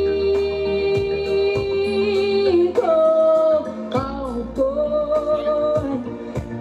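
A woman singing into a microphone, holding long notes with slides up and down between them, over musical accompaniment with a steady low bass.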